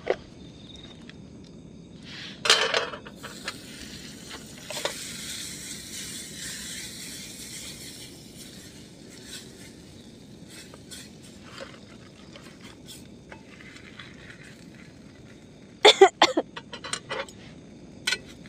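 Bread frying in a small pan on a camp stove: a hissing sizzle that swells for a few seconds after a clatter, with scattered clinks and scrapes of a metal utensil against the pan and a quick burst of loud clinks near the end.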